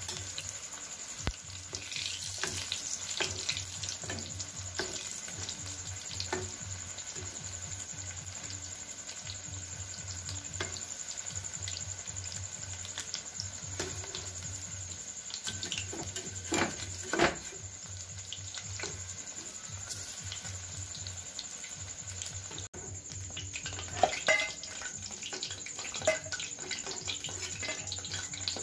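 Bok phool (agati flower) fritters in gram-flour batter deep-frying in hot oil in a steel kadai, a steady sizzle with crackling pops. A metal spatula clinks and scrapes against the pan a few times, loudest about two-thirds of the way in and near the end.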